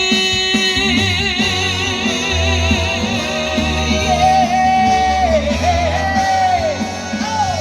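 Trot song's backing track playing over a steady bass: a sung note held with wide vibrato in the first couple of seconds, then an instrumental melody line with bending notes carries the song's ending.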